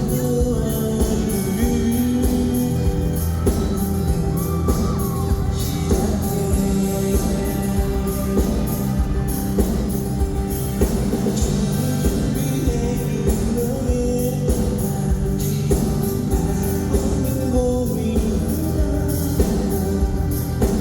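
Live pop-rock band with a lead vocalist singing over guitar, bass and a steady drum beat.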